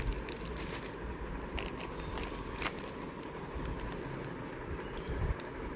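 Clear plastic sleeves crinkling and rustling as small wrapped artworks are handled, in scattered sharp crackles.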